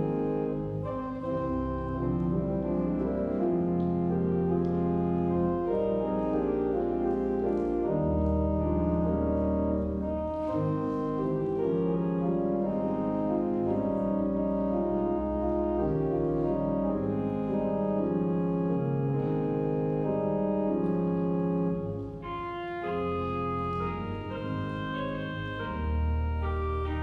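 Pipe organ playing sustained chords over held low pedal bass notes in a Christmas arrangement. About 22 seconds in the sound dips briefly and then moves into higher, brighter chords.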